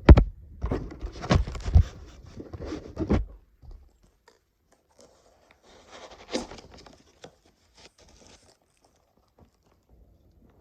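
Packaging being handled and dug through: a few knocks with crinkling and tearing of paper or cardboard for about three seconds, then fainter rustling about six seconds in.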